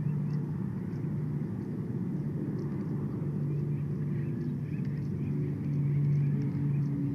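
Low, steady drone of a distant engine, its held tones shifting in pitch about five seconds in, with faint short high chirps or ticks over it.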